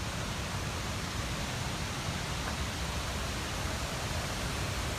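Steady, even rush of a wide river waterfall pouring over rock ledges.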